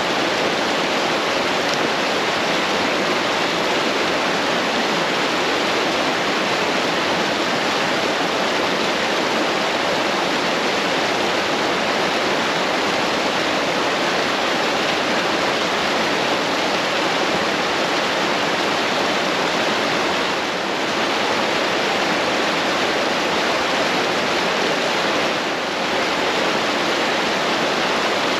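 A snowmelt- and rain-swollen mountain brook rushing loudly and steadily over rocks.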